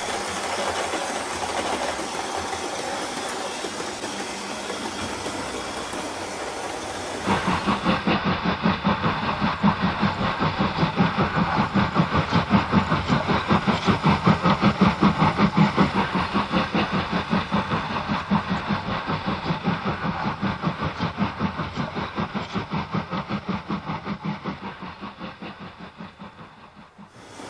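OO gauge model of an LNER A5 tank locomotive and its coaches running on a layout. At first there is a steady hiss. About seven seconds in it changes to a regular rhythmic beat, several times a second, that slowly fades toward the end.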